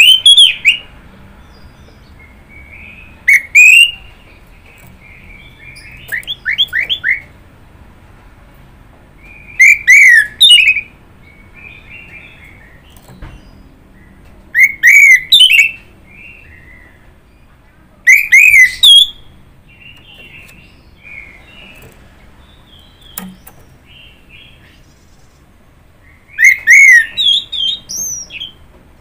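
Orange-headed thrush (anis merah) singing: loud short phrases of quick falling whistled notes, repeated about every three to five seconds, with softer twittering between phrases.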